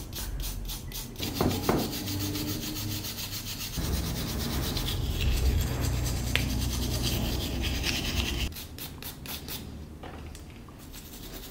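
Hand wire brush scrubbing a wet, rusty steel lock plate with quick back-and-forth strokes, metal bristles rasping on corroded metal. It gets softer near the end.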